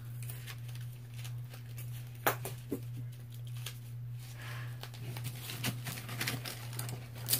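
Scattered small clicks and rustles of hand-held craft materials being worked, the sharpest about two seconds in and right at the end, over a steady low hum.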